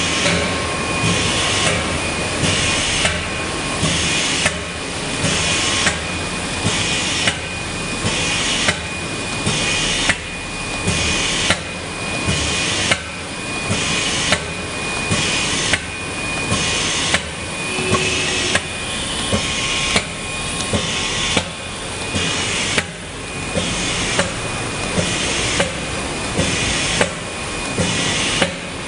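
Tamprinter TAM ZP automatic roll-to-roll flat screen printing machine running through its print cycle: a sharp clack and a rush of noise repeat about every second and a half, over a faint steady whine.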